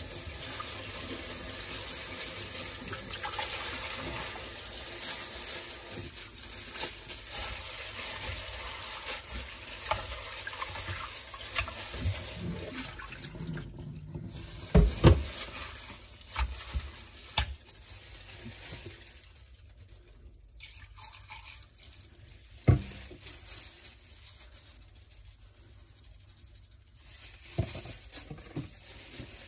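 Kitchen tap running into a glass bowl in a stainless steel sink while raw chicken breasts are rinsed and rubbed by gloved hands. About halfway the running water stops, and the bowl is drained into the sink, with a few sharp knocks.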